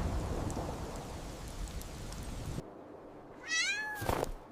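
Steady snowstorm wind that cuts off suddenly about two and a half seconds in. A single cat meow falling in pitch follows, then a brief thump near the end.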